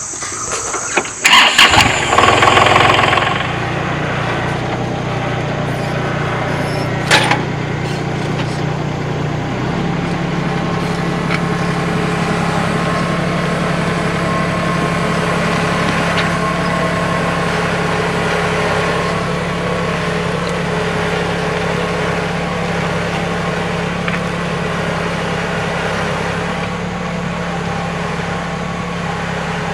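Kubota L3901 tractor's three-cylinder diesel engine cranking and catching about a second and a half in, then idling steadily. There is a single sharp click about seven seconds in. The engine note shifts slightly about ten seconds in and runs on steady.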